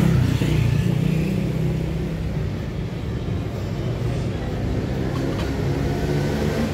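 A motor vehicle's engine running close by in street traffic: a steady low engine sound over general street noise.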